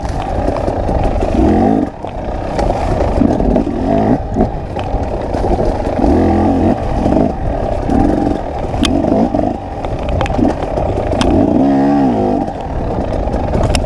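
KTM 300 XC two-stroke enduro engine revving in repeated short bursts as the throttle is worked, with knocks and clatter from the bike over rocky ground.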